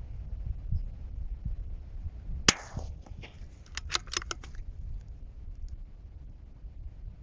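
A CZ 457 Varmint .22 LR bolt-action rifle fires once about two and a half seconds in, a sharp report with a short echoing tail. About a second later comes a quick run of metallic clicks as the bolt is worked to chamber the next round, over a low steady rumble.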